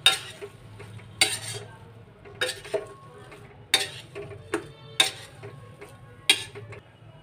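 Metal spatula scraping and knocking against a steel kadhai while stirring thick mashed-potato filling, in sharp strokes roughly once a second.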